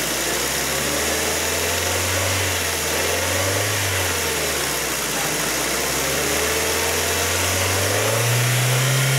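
Ford car engine being revved in park for an exhaust backpressure test. The revs rise at the start, waver, sag about halfway and climb again near the end.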